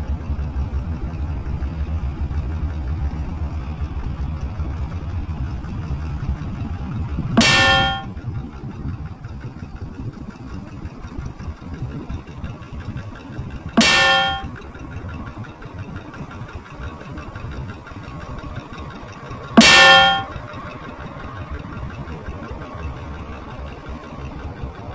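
Motorcycle engine running with a low rumble as it rides along, fading somewhat after about eight seconds. Three loud metallic clangs ring out about six seconds apart, each ringing for about half a second; these are the loudest sounds.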